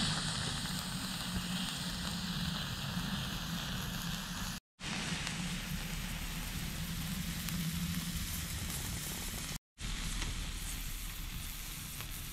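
Sliced meat sizzling on a mess-tin grill plate over a wood fire, a steady hiss with faint crackles from the embers. It breaks off for an instant twice.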